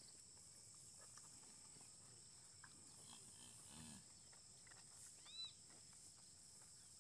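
Faint rural ambience: a steady high insect trill, with two short, faint animal calls, a low one about four seconds in and a higher one a little after five seconds.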